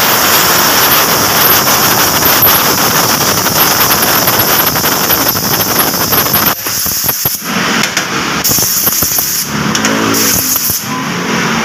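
Bench grinder wire wheel brushing a metal piece, a loud steady rasping hiss. About six and a half seconds in the piece comes off the wheel briefly, and near the end the grinder's motor hum is heard with the wheel spinning almost free.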